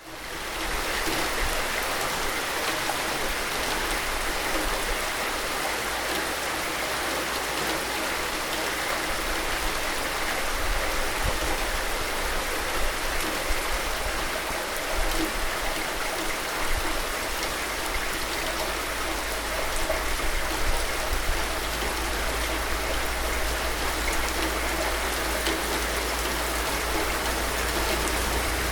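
Steady rain falling, an even hiss of drops with a low rumble underneath; it swells in quickly at the very start.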